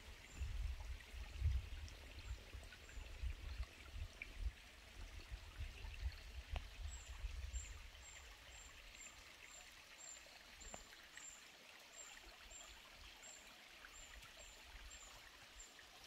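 Faint running stream water, with a low rumble on the microphone during roughly the first half. In the second half a faint, high chirp repeats evenly, about twice a second.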